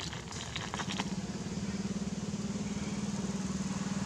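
Small engine running steadily with an even, pulsing drone, with a few light clicks within the first second.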